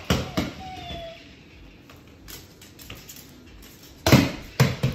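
Sharp knocks and thumps on a kitchen countertop as a cockatoo plays with a small toy: two at the start, a few faint ones in the middle, and the loudest pair about four seconds in.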